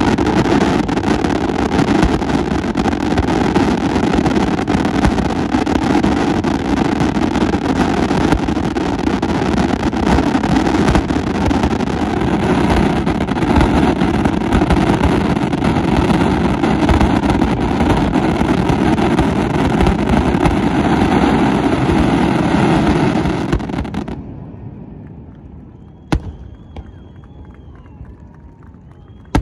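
Fireworks display: a dense, continuous barrage of shell bursts and crackling that stops abruptly about 24 seconds in, followed by a single bang and a few faint whistles.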